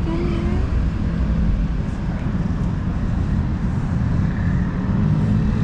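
Steady low rumble of street traffic, with a vehicle engine running that grows a little stronger near the end. A short rising tone sounds at the very start.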